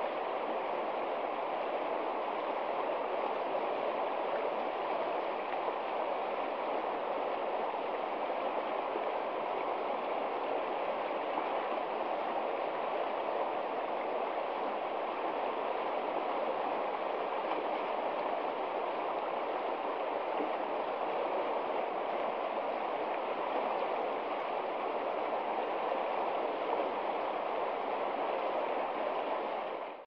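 Shallow river rushing over stones and through a small riffle of white water: a steady, even rush of flowing water.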